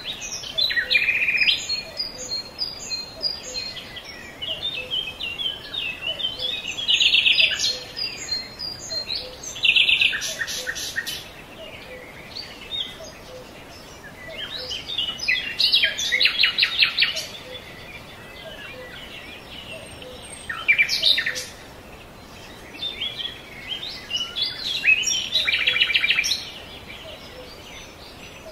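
Birds chirping and singing, with loud bursts of rapid trills every few seconds.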